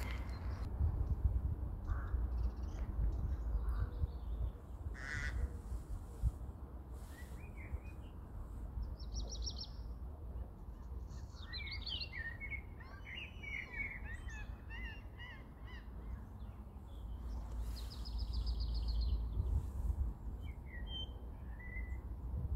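Several birds chirping and calling in scattered short phrases, busiest in the middle and near the end, over a steady low rumble.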